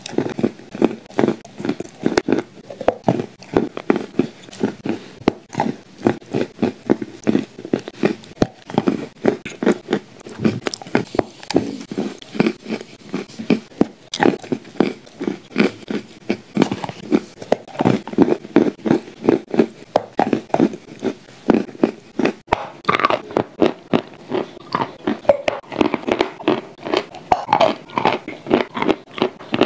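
Close-miked biting and chewing of mouthfuls of clay paste: wet mouth sounds in a steady run of about three or four chews a second.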